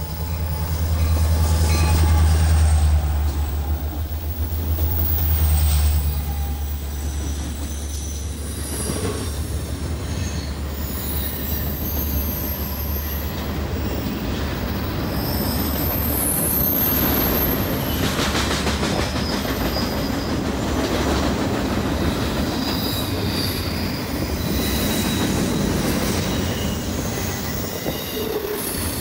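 BNSF freight train passing close by. For the first six seconds or so the diesel locomotives go by with a loud, low engine drone. Then the empty container and waste cars roll past with a steady rumble and clatter of wheels on rail, and thin, high wheel squeal.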